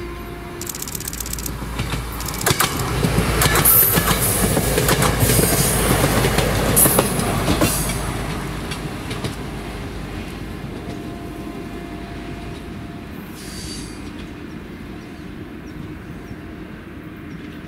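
RA2 diesel railbus passing at speed: its wheels click over the rails and its running noise swells to a peak about three to eight seconds in, then fades steadily as it runs away.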